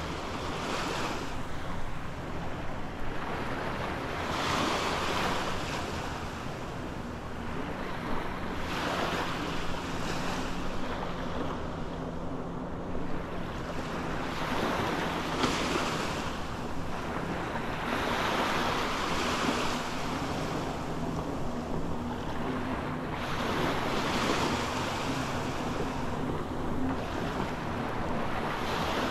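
Small waves lapping and washing up a sandy beach, a new wash every three or four seconds.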